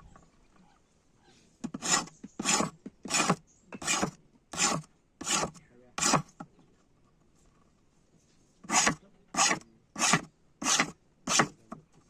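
Hand file rasping in even back-and-forth strokes, about one every two-thirds of a second: seven strokes, a pause of about two seconds, then five more.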